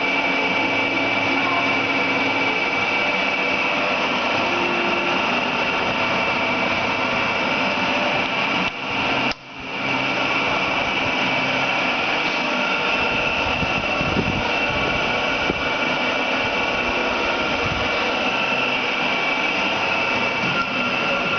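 Challenger metal lathe running steadily with a high whine, with a brief dip in sound about nine seconds in.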